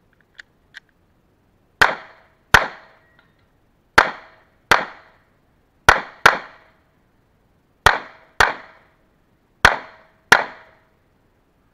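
CZ P-07 pistol fired ten times in five quick pairs (double taps), each pair well under a second apart with a pause of one to two seconds between pairs; every shot is loud and rings briefly. Two faint clicks come just before the first shot.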